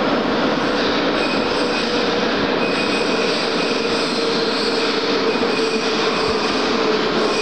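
Russian-built 81-717.4 metro train approaching along the track: a steady running noise with a held whine over it.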